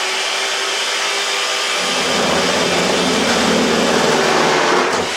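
Electric food mixer with whisks running steadily at full power. About two seconds in, a lower, rapid fluttering rattle joins it as a rubber balloon is held against the spinning beaters; it stops near the end without a pop.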